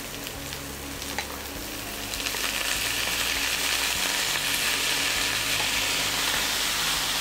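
Vegetables and soaked basmati rice sizzling in ghee in a hot nonstick pan as the wet rice is poured in. The sizzle gets louder about two seconds in and holds steady, and a wooden spatula starts stirring near the end.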